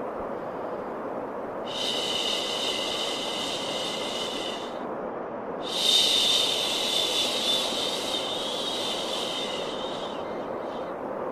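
Steady white noise for calming a baby, with a long hushing 'shhh' laid over it twice. The first lasts about three seconds and the second, louder, about four seconds and starts halfway through.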